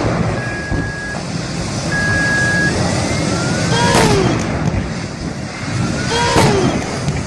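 Steady car road and engine noise, with two long high beeps in the first three seconds. About four and six and a half seconds in come two sharp hits, each followed by a falling tone.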